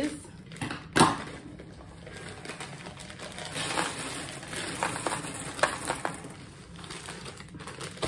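A sharp snip as scissors cut open a plastic bag of dried pinto beans, then the beans poured into a plastic tub of black beans, a steady rattling patter of many small clicks.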